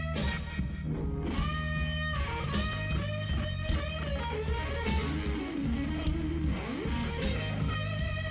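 Blues music playing: an instrumental guitar passage over a steady bass line and beat, with bending notes around the middle.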